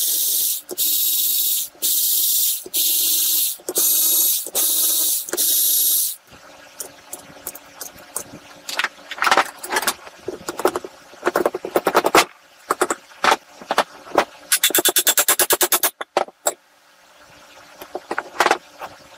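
A hand-held power ratchet spins out a mower engine's side-cover bolts in about six short whirring bursts. Then a soft-faced mallet knocks on the side cover to break it loose from the crankcase, with a quick run of clicks near the end.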